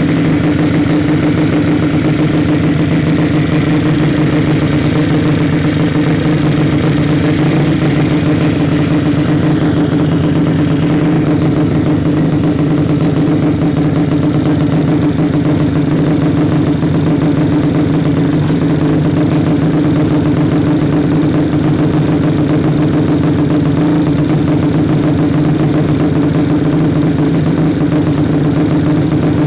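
Suzuki Nex scooter's single-cylinder four-stroke engine, tuned up to 130cc, running steadily at idle with no revving.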